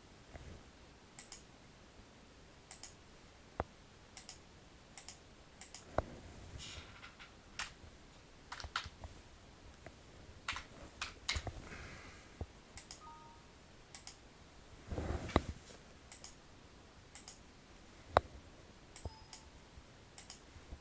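Irregular clicks of a computer mouse and keyboard, with a brief louder noise about fifteen seconds in.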